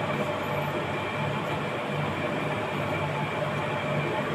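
Steady mechanical hum and hiss from a running machine, with a low throb that pulses a little under twice a second.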